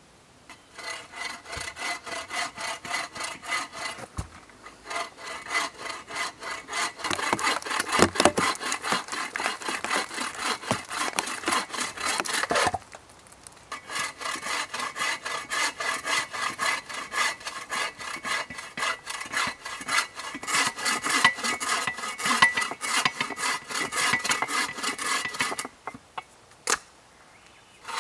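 Bow saw cutting through a log with quick, even back-and-forth strokes. It stops for about a second midway and again shortly before the end.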